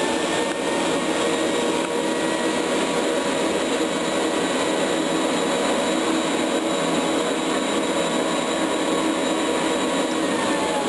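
Vintage Hoover 918 vacuum cleaner running steadily with its bag fitted: an even purr with steady tones over it, the sound of a healthy machine.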